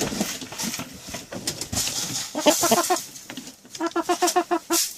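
Domestic chickens clucking, with two quick runs of clucks at about seven a second in the second half, amid rustling and scratching.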